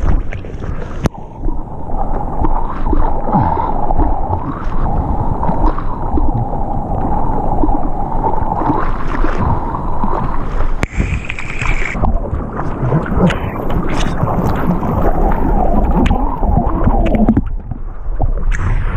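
Seawater rushing and gurgling around a GoPro as a surfboard is paddled through whitewater. It is heavily muffled, as with the camera awash or under the surface, and it brightens into open splashing and wave noise near the end.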